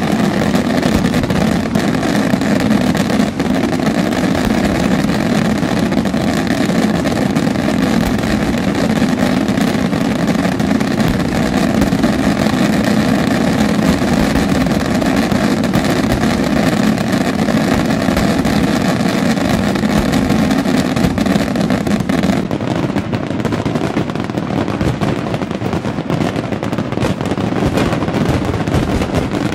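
Fireworks finale barrage: many aerial shells bursting at once, their reports merging into one continuous loud rumble. About 22 seconds in it changes abruptly to a slightly quieter, duller barrage.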